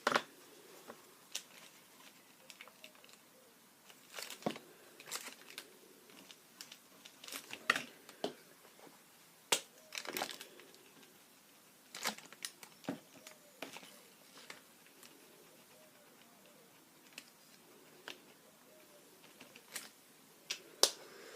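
Scattered light clicks, taps and crinkly rustles of paper and craft materials being handled on a work table.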